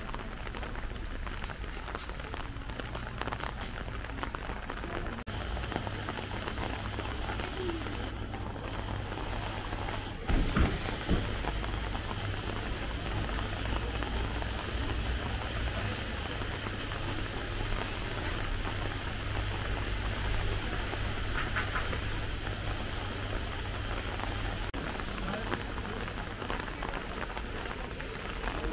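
Steady rain falling, over a low steady hum, with a couple of loud low thumps about ten seconds in.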